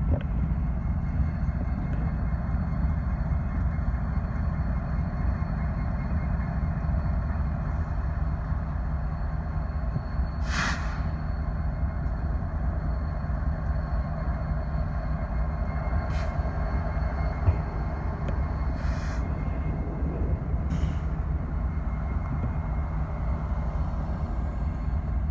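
BNSF diesel locomotive engine running with a steady low rumble, with several short hisses in the second half.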